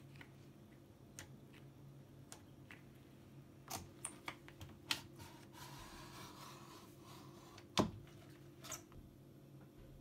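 Hotpoint WMFUG842P washing machine's plastic program dial and detergent drawer being handled: scattered sharp clicks and knocks, a stretch of sliding rub in the middle, and one loud plastic knock near the end, over a faint steady hum.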